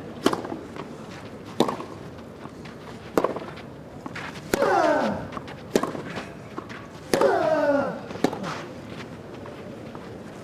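Tennis rally on a clay court: seven sharp racket-on-ball strikes, roughly one every second and a half. Twice a player lets out a short grunt that falls in pitch as he hits. A low, steady crowd hush sits underneath.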